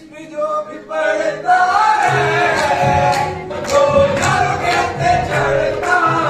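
Qawwali sung by a group of young men in unison, with rhythmic hand-clapping; the singing and clapping start about a second in.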